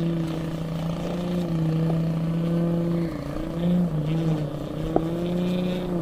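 Electric propeller drone of a Seagull Decathlon 122-inch RC plane, a Scorpion 6530 motor turning a 28x13 Falcon propeller, steady and heard from below as it flies. The pitch sags for about a second midway and comes back up. A single sharp click sounds about five seconds in.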